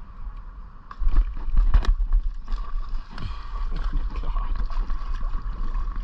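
A bass blowing up on a hollow-body topwater frog lure and thrashing at the surface, splashing water, starting suddenly about a second in. The rod and kayak are jostled and knocked as the hook is set and the fish is fought.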